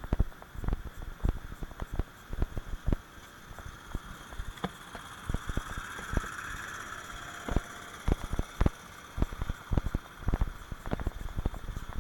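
Footsteps of a person walking, irregular low thuds about two a second, over a steady hiss of background noise that swells briefly in the middle.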